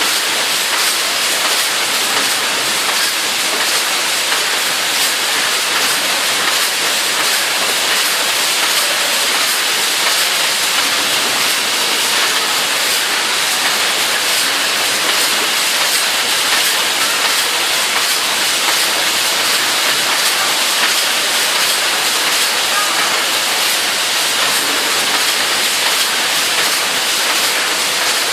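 BVM-1300 automatic pasta baling machine running: a steady, high hiss of machinery and air with faint irregular ticking in it.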